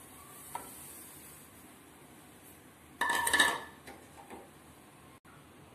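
Kitchenware clatter: about three seconds in, something knocks against a steel cooking pot with a short metallic ring that dies away within about a second, after a stretch of faint steady background noise.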